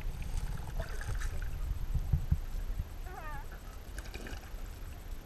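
Muffled underwater sound of a swimming pool picked up by a submerged camera: a steady low rumble of moving water with faint bubbling ticks, and a short warbling sound about three seconds in.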